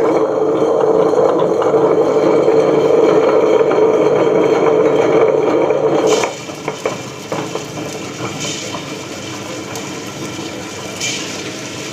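Preethi Power wet grinder running, its 150-watt motor turning the stainless steel drum against the stones with a steady hum. About six seconds in the sound changes suddenly: it gets quieter and turns into a rattling churn with a few sharp knocks.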